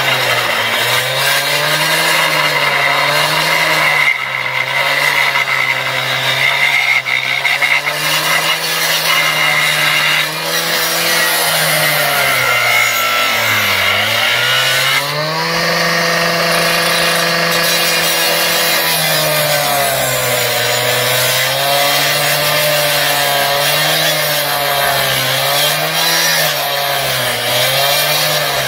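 An engine running steadily at high revs, bogging down sharply about halfway through and dipping briefly a few more times near the end, as if taking load.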